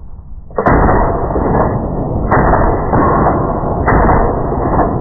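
Three shots from a PSL semi-automatic rifle in 7.62x54R, fired with no muzzle brake fitted, about a second and a half apart, each followed by a long echoing tail.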